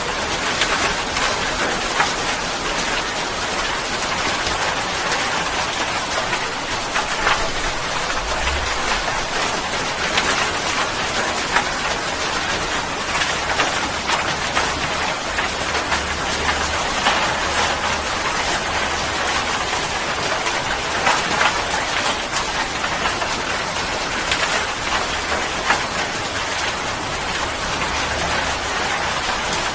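Steady rain falling, with the patter of many separate drops striking a surface. A faint low rumble sits underneath from about eight seconds in.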